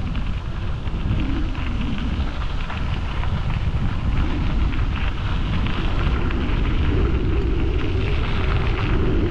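Wind buffeting the microphone of a moving bicycle, a steady heavy rumble with a dense crackle over it.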